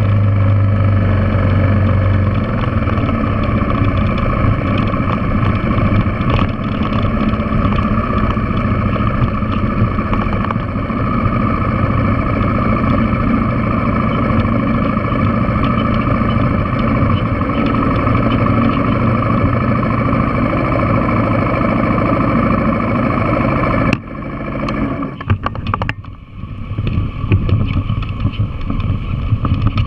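Yamaha TW200's single-cylinder four-stroke engine running steadily as the motorcycle rides over a rocky dirt trail. About 24 seconds in the engine sound drops away suddenly, stays lower and uneven for a few seconds, then picks back up.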